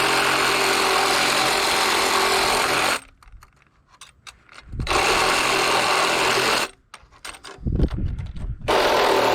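A handheld power tool running in bursts, cutting out sharply twice and starting up again: about three seconds on, a short pause, two seconds on, then on again near the end.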